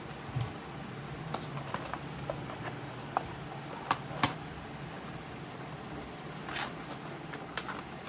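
Scattered light clicks and taps of packaging being handled, the sharpest about three and four seconds in, with a brief scrape near the end, over a steady low hum.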